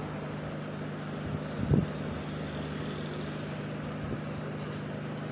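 Steady hum and air noise from a running fan, with one brief low sound about a second and a half in.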